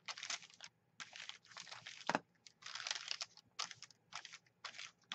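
Ink pad rubbed over crumpled notebook paper in about ten short, brisk, scratchy swipes, with the paper crinkling under it. There is a sharper tap about two seconds in.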